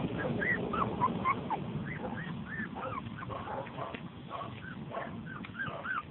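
A litter of young puppies squeaking and whimpering, a steady run of short high squeals about two or three a second, overlapping one another.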